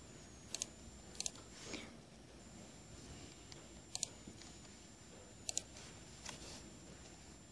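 Four quiet mouse clicks spread out with pauses between them. Each is a quick double tick, the press and release of the button.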